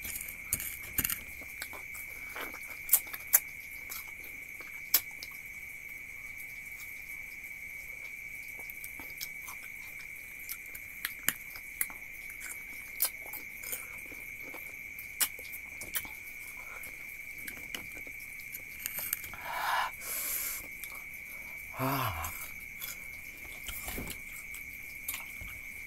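Biting and chewing of sour cermai (Otaheite gooseberries), heard as many scattered sharp mouth clicks, over a steady high-pitched insect drone. A brief vocal sound falling in pitch near the end.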